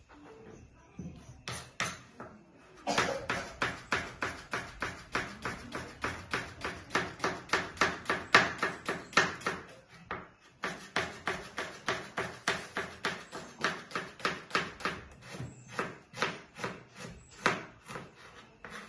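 Kitchen knife slicing a red onion on a cutting board: quick, even knocks of the blade on the board, about four a second, after a few slower knocks at the start. There is a short pause about ten seconds in.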